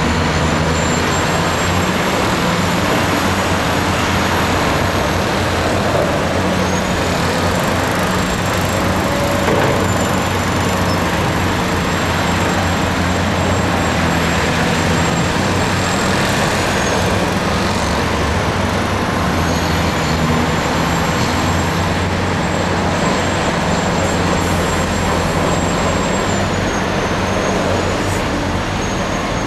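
Heavy diesel engines of an articulated dump truck and a mired tipper truck running steadily under load as the tipper is towed out of deep mud.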